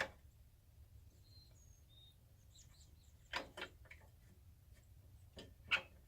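A few light knocks and clicks from a Ryobi table saw's rip fence being slid and set to 1 inch, the saw not running. Faint bird chirps sound in the background about a second in.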